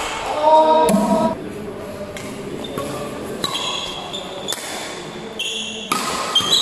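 Badminton rally: sharp racket strikes on the shuttlecock and short high squeaks of court shoes on the hall floor, with a voice calling out briefly near the start.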